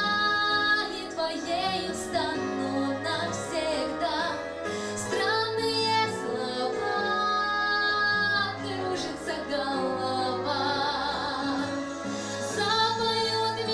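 A woman sings a slow, emotional song into a handheld microphone. She holds long notes that waver with vibrato.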